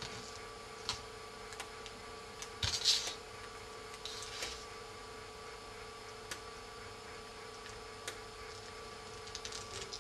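Faint handling sounds of fingers pressing and smoothing adhesive tape onto a phone's touch-screen frame: a few light clicks and two short rustles, the louder about three seconds in, over a steady faint hum.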